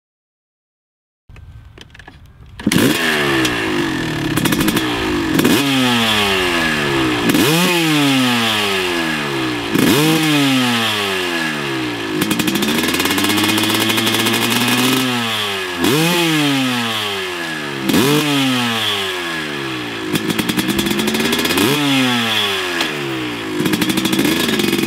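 Kawasaki KX250 two-stroke single, bored out to 270cc and fitted with a Pro Circuit exhaust, being revved in sharp throttle blips about every two seconds. Each blip falls away in pitch back toward idle, with one slower, longer rev in the middle. The engine comes in a couple of seconds in, after a moment of silence.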